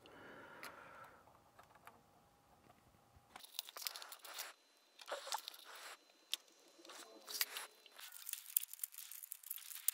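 Faint, scattered crinkling and clicking of plastic being handled, starting a few seconds in, as small plastic pins are pressed into the push-in pegs that fasten a circuit board to a battery module's clear plastic cover.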